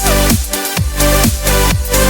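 Electronic dance music with a steady beat and repeated falling bass sweeps.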